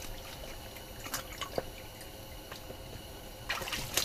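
A few scattered drips and small splashes of water, with light clicks from handling fishing line.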